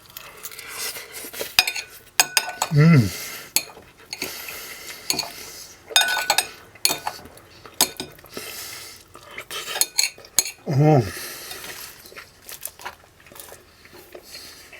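Metal cutlery clinking and scraping on a plate while a fork and knife cut into a baked puff-pastry pie, in many short clicks. Two short hums of a voice come about three seconds in and again near eleven seconds.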